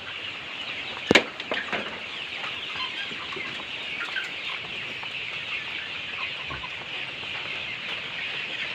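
Chickens clucking and calling in a coop, a steady high chatter, with one sharp knock about a second in.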